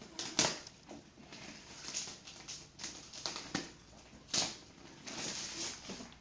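Packaging being handled and opened: rustling of wrapping with scattered knocks and taps, the sharpest about half a second in and again about four seconds in.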